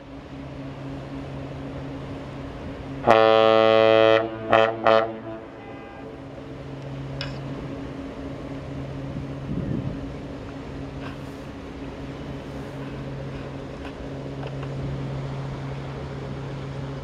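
Great Lakes freighter H. Lee White sounding its ship's horn: one blast of about a second, then two short blasts. A steady low drone from the passing ship runs underneath.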